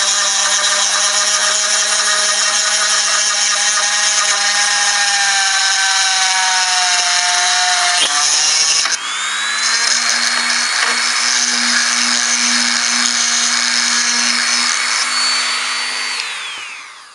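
Dremel rotary tool whining at high speed as its thickest bit grinds a hole through the glass of a wet beer bottle. About 8 s in the motor briefly slows, then spins back up and runs steadily, and near the end it winds down as the tool is switched off.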